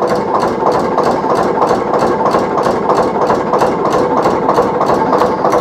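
Vintage two-cylinder Kelvin narrowboat diesel engine ticking over, heard close up in its engine room: a steady, even beat of about four or five firing strokes a second.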